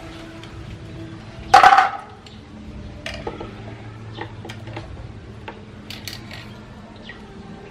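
Plastic toy fishing rod and rubber toy animals handled over a plastic basin of water: one short, loud noise about one and a half seconds in, then scattered light clicks and taps.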